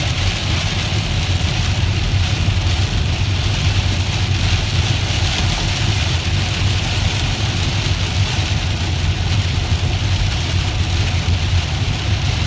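Heavy, wind-driven rain pouring down steadily, heard from inside a car over the steady low rumble of its engine and road noise.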